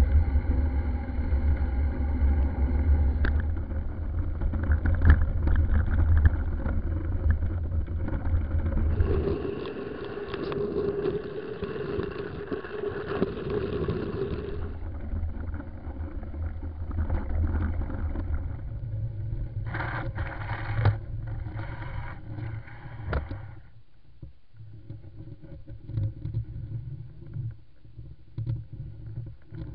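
Running noise of a small handlebar-steered vehicle travelling over snowy roads: a steady low rumble with some engine or motor tone. It changes abruptly several times, with a few knocks and rattles partway through.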